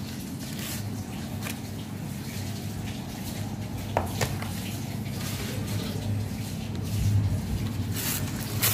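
Dried-out rice paper crackling and crinkling in short snaps as hands fold it around spring-roll filling, with a few sharper snaps about four seconds in and near the end, over a steady low hum.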